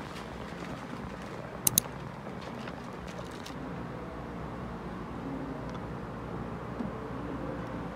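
Steady low room noise with a sharp double click just under two seconds in and a few faint taps after it: small handling sounds at a desk.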